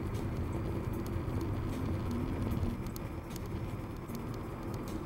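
Car travelling at highway speed, heard from inside the cabin: a steady drone of engine and tyres on the road, with a few light ticks now and then.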